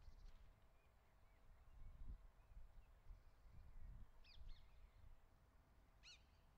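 Faint outdoor ambience: a low rumble with distant birds calling, including two short calls about two-thirds of the way in and another near the end.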